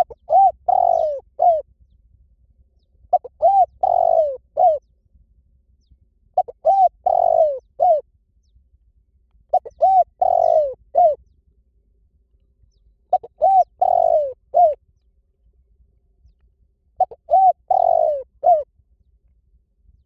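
Spotted dove cooing: six repeated phrases about every three to four seconds, each two short coos, a longer falling coo and a final short coo.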